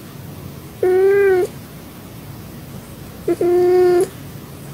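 Cat meowing twice, two short, fairly even-pitched meows about two and a half seconds apart, the second opening with a brief chirp. They are the complaining meows of a cat in a bad mood.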